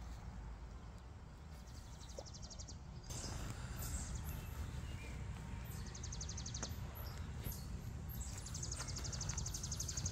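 Footsteps of canvas sneakers walking over grass and bare dirt, with a steady low rumble underneath. A high, fast-pulsing trill comes in three times, the longest near the end.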